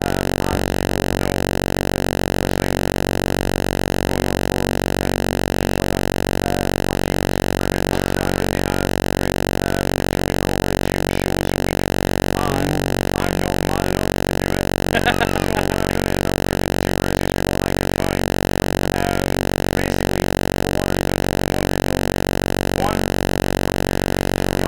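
Steady, unchanging electrical buzz, a mains hum with many overtones, with a couple of faint brief sounds around the middle.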